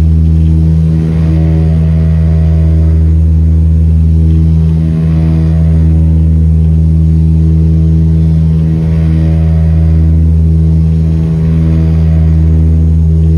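A turboprop airliner's engine and propeller, heard from inside the cabin beside the propeller in the climb: a loud, steady low drone that swells and fades in a slow throb every few seconds.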